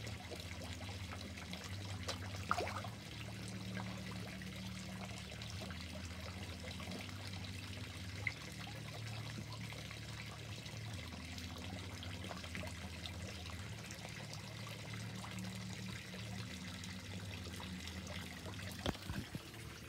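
Water trickling steadily in a garden fish pond, over a low steady hum, with a few brief clicks.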